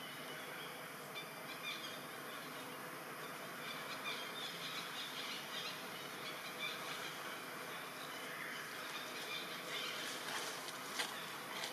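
Steady outdoor ambience, an even hiss, with a few faint clicks near the end.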